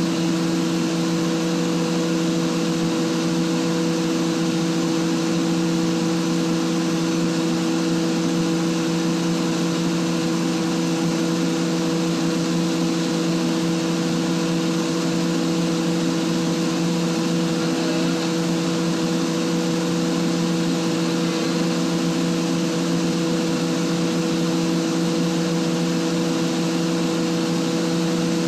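Atlas Copco GA160 rotary screw air compressor running loaded: a steady hum with a few strong steady tones, unchanging while it builds outlet pressure back up toward 7.6 bar.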